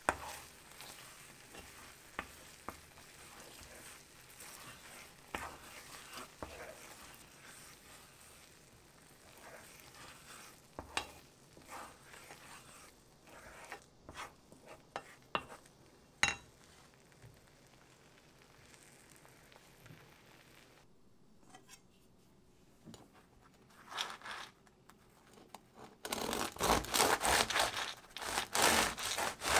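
Food sizzling in a pan and stirred now and then, with scattered clicks and taps of a utensil. A louder stretch of dense rustling and scraping comes in the last few seconds.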